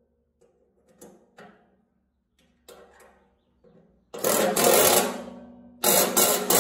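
Ratchet wrench clicking quickly as it runs a nut down a bolt on the steel carrier frame. There are a few light clicks first, then two loud spells of fast clicking, one starting about four seconds in and a second near the end.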